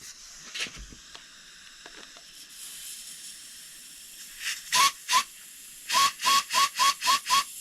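Compressed-air blow gun fired in short blasts through a newly installed oil spray nozzle (injection valve) in a BMW N55 engine block, testing that air passes through it. Each blast is a loud hiss that starts with a brief whistle: one early, two at about five seconds, then a quick run of six near the end.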